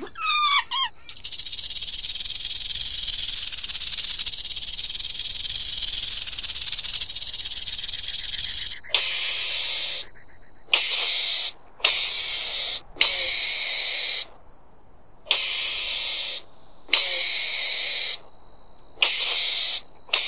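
An animal hissing: one long harsh hiss, then about eight shorter hisses in a row.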